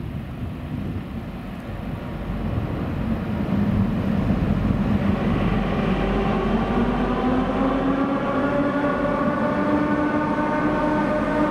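Captrain class 335 diesel locomotive hauling a freight train as it approaches through the underground station. A low rumble grows louder from about three seconds in, and the engine's note rises gently in pitch through the second half.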